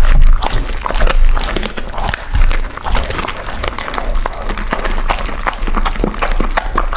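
Two dogs, a Labrador and an Alaskan Malamute, close-miked as they lick and gnaw cooked meat on the bone on a wooden board: a continuous run of wet smacking, licking and irregular chewing clicks.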